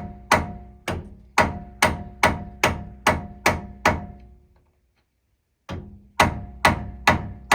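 Hammer blows on metal, a steady run of about two or three ringing strikes a second, a pause of over a second, then four more: hammering a tool in behind the lip of a front wheel hub's grease cap to knock the cap off.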